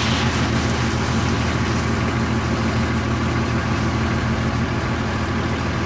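Steady vehicle engine and road noise.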